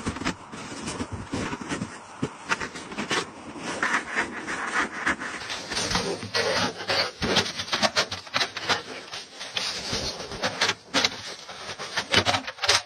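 Snow crunching and scraping as a small metal wood stove is handled and pushed into a hollow in packed snow: a dense, irregular run of crunches and rubs.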